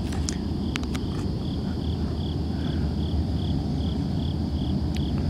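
Crickets chirping in an even rhythm, a little over two chirps a second, over a steady low rumble. A few faint clicks in the first second.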